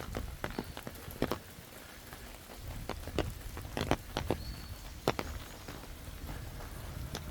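Footsteps of a person walking, a series of irregular steps over a low rumble.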